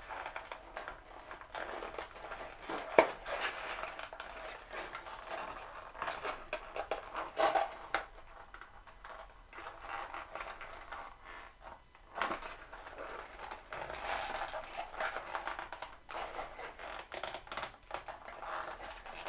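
Cardboard packaging and a small plastic tracker handled: irregular rustling, scraping and clicks as the Fitbit One is worked loose from its clip on the box insert, with one sharp click about three seconds in.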